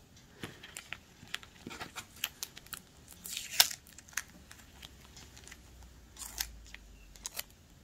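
Hands handling a tape-covered cardboard strip wound with yarn: scattered small crinkles and clicks, with a louder crackle about three and a half seconds in.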